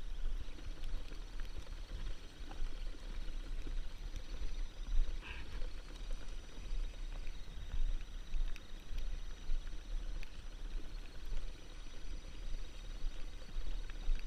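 Wind buffeting the microphone, a low rumble that rises and falls unevenly, with a brief higher squeak about five seconds in.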